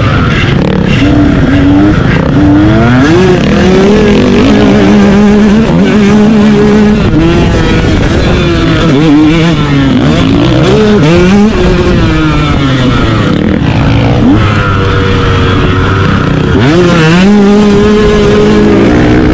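Motocross dirt bike engine running at race pace, its revs rising and dropping over and over through the jumps and corners. The revs hold steady in a couple of stretches, about five seconds in and again near the end.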